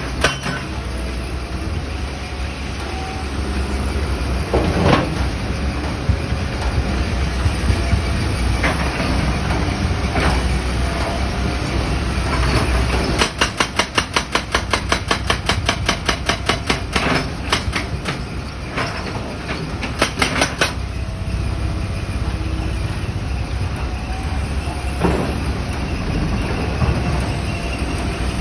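Excavator engine running steadily under load, with occasional sharp knocks and, for several seconds in the middle, a fast even run of clanks at about five a second.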